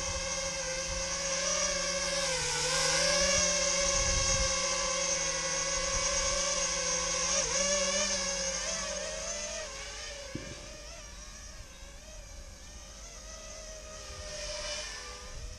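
Brushless motors of a small drone running with a steady high whine, the pitch wavering slightly. It is louder for the first ten seconds or so, then settles quieter.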